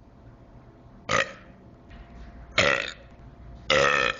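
A person belching three times in a row, short burps about a second and a half apart, the third the longest.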